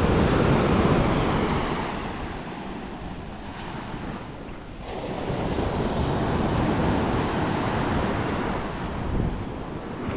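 Small sea waves breaking and washing up a sandy shore, rising in two surges a few seconds apart, with wind on the microphone.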